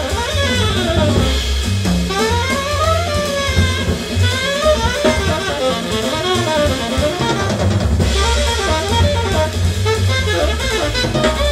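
Bebop jazz recording played back through a tube-amplified hi-fi and loudspeakers, picked up by a room microphone: a saxophone plays fast runs that climb and fall over a drum kit.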